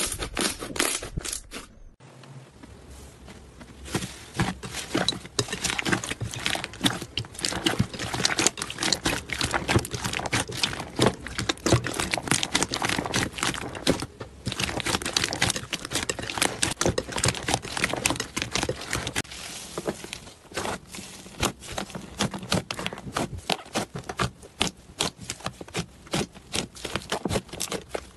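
Slime being squeezed, pressed and poked, giving dense runs of small crackling and popping clicks. The sound changes abruptly about two seconds in, quieter at first, then builds, and changes again about twenty seconds in.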